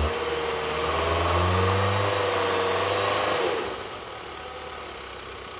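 Mitsubishi Outlander Sport engine running under throttle as the stuck SUV tries to move in deep snow, its pitch wavering, then easing off to a quieter idle about three and a half seconds in.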